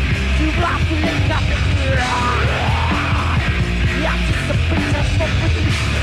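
Death metal band playing live: loud, dense distorted guitars, bass and drums with yelled vocals, captured on a live tape recording.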